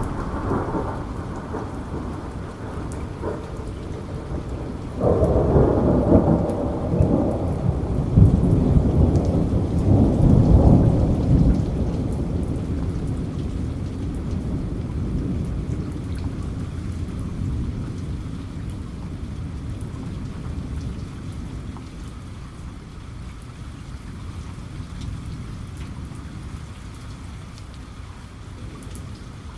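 Steady rain with drops pattering, and a thunderclap about five seconds in that breaks suddenly and rumbles for several seconds before slowly dying away.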